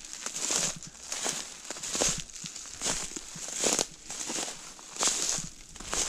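Footsteps crunching through dry fallen leaves on a forest floor, about eight steps at a steady walking pace.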